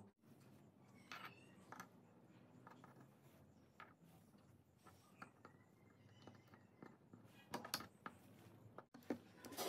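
Near silence with a few faint, light clicks and taps: a small carved wooden part and a steel ruler being handled against each other.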